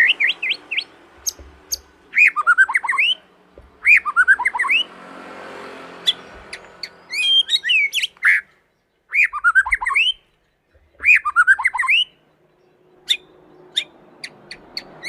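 Young white-rumped shama singing: short bursts of quick rising and falling whistled notes repeated every couple of seconds, with sharp chip notes in between and a short pause near the end.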